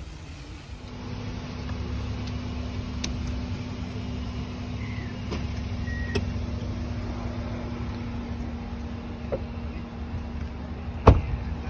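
Hyundai i20 heard from inside the cabin on the move: a steady low rumble with a steady hum that comes in about a second in. A few light clicks are heard, then a single sharp knock near the end.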